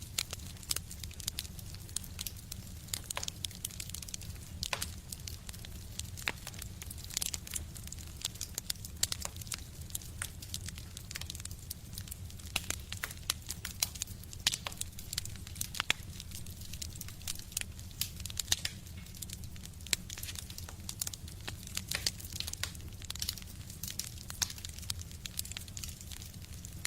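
Wood fire burning in a stove, crackling with frequent irregular sharp pops and snaps over a low steady rumble.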